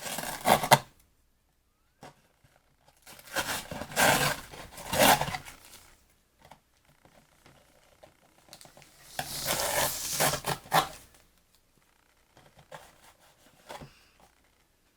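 Protective plastic film being peeled off a plastic piece, in three noisy spells of peeling with quiet pauses between, then a few small handling clicks near the end.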